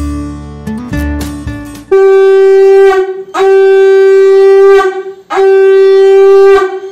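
Background guitar music ends, then a conch shell (shankh) is blown three times: long, loud, steady blasts of one to one and a half seconds each with short gaps, as is done in Hindu worship at a household shrine.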